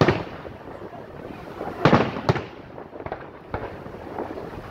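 Aerial firework shells bursting overhead: a loud bang at the start, two more in quick succession about two seconds in, then softer bangs.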